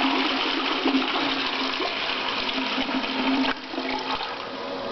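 Dual-flush toilet flushing, water rushing hard into the bowl, described as a torrent. The rush drops off suddenly about three and a half seconds in, leaving a quieter steady hiss of water.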